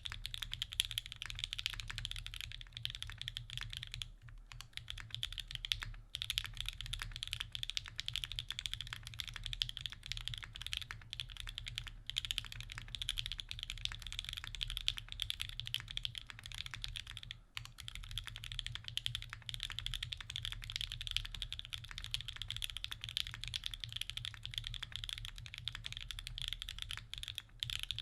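Fast, continuous typing on a custom mechanical keyboard: lubed 43Studio OP Black switches under GMK keycaps, on a top-mounted aluminium plate. The keystrokes come in a dense stream with a few brief pauses.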